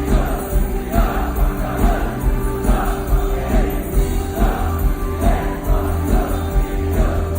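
Girl group singing a pop song live over a loud backing track with a steady beat, heard through a concert sound system from the audience.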